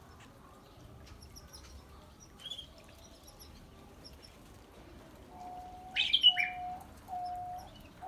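Zebra finches calling around a water dish: soft, high chirps throughout and a louder, sharper call about six seconds in. From about five seconds in, a steady hooting note repeats about once a second, three times.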